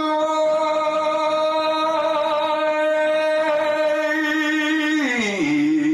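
A man's singing voice holding one long, open vowel on a single steady note, as a demonstration of keeping the sound open and supported. About five seconds in, the pitch slides down to a lower note.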